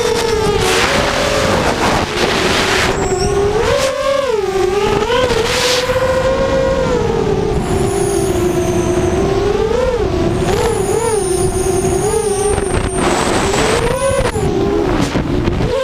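Brushless motors of a small FPV racing quadcopter (Cobra 2208 2000 kV on a 4S battery) whining, the pitch rising and falling again and again with the throttle, with several rushes of wind noise.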